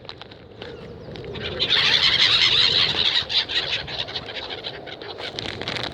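A flock of seagulls calling and squawking over one another, loudest from about one and a half to three seconds in.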